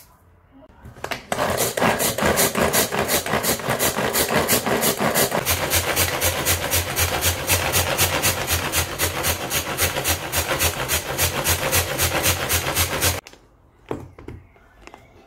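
Hand-pulled string food chopper worked in a fast, even rhythm: the cord zips out and recoils again and again while the blades spin and chop vegetables in the plastic bowl. It starts about a second in and stops abruptly near the end, followed by a couple of light clicks.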